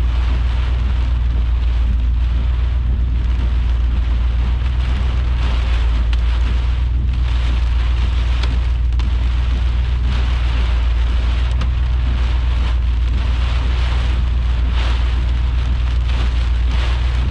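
Heavy thunderstorm rain pelting down without a break, its hiss swelling and easing, over a steady low rumble.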